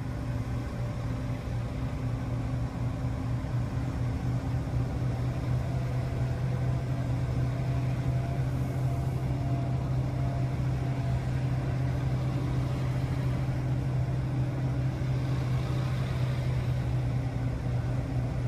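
Scania P260 truck's diesel engine running steadily at low revs while the truck drives slowly, heard from inside the cab as an even low hum.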